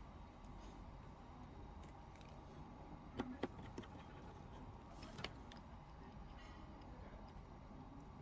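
Faint steady background with a few light clicks and taps: small parts and tools being handled while a smartphone is put back together. There are two sharp clicks about three seconds in and another around five seconds.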